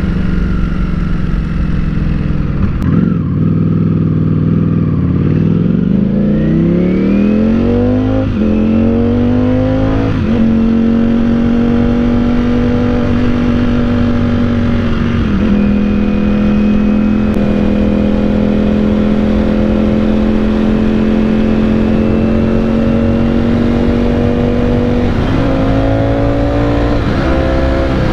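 Ducati Panigale V4 S's V4 engine heard from the rider's seat. Its pitch falls in the first few seconds, then rises steeply under hard acceleration with breaks at gear or throttle changes about eight and ten seconds in. After that it holds a high, slowly climbing note as the bike pulls in third gear, with wind noise underneath.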